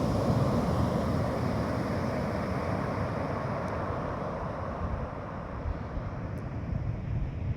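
Sea surf washing onto the beach, with wind buffeting the microphone; the rush of water fades gradually as the wave runs out.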